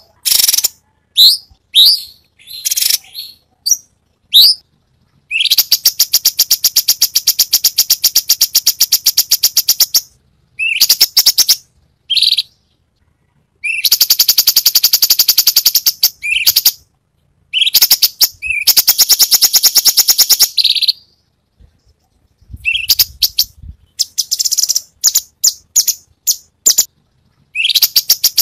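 Cucak cungkok singing: short rising whistled chirps, then long runs of rapid repeated sharp notes lasting a few seconds each, the fast bursts bird keepers call 'tembakan'.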